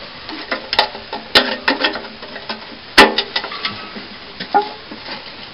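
Metal clanks and rattles from a hand-cranked sheet-metal splatter box being handled and its lid fitted. There are several light knocks and one sharp clank about three seconds in.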